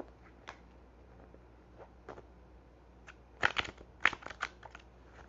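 A deck of tarot cards being handled and shuffled: a few soft ticks, then two quick flurries of sharp card clicks about three and a half and four seconds in.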